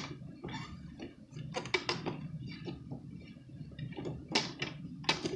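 Small wooden toy pieces clicking and knocking against a wooden activity cube as they are handled, a scatter of light taps with a cluster about two seconds in.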